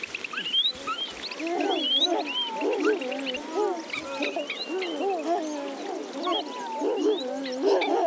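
A chorus of animal calls: many short, overlapping calls that rise and fall in pitch, with higher chirping calls, likely birds, above them.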